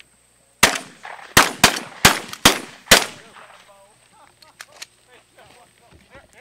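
Volley of shotgun fire: six blasts in quick succession over about two and a half seconds, from more than one gun.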